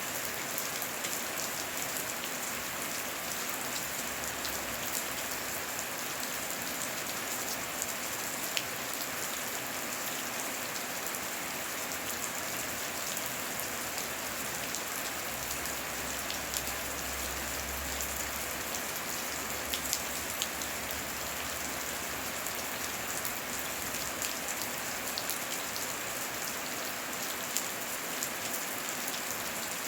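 Heavy rain falling steadily: a dense hiss with many individual drops clicking close by. A low rumble swells in the middle and fades again.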